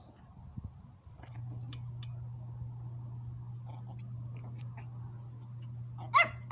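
Small dogs play-fighting, with soft mouthing and chewing sounds as they nip at each other, then a sharp, loud yip near the end. A steady low hum starts about a second in.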